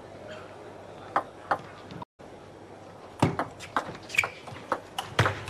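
Celluloid table tennis ball clicking off bats and table in a fast doubles rally, about three to four clicks a second, over the low murmur of a hall crowd; a few single clicks come first, and the sound drops out briefly about two seconds in.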